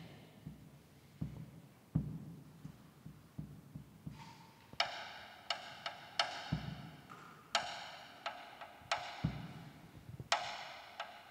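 A drum kit played slowly and sparsely: soft low drum hits every half second to a second, joined from about four to five seconds in by bright, ringing metallic strikes about once a second.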